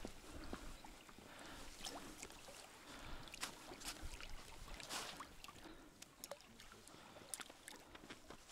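Quiet water lapping against an inflatable boat's hull, with scattered faint clicks and knocks at irregular moments.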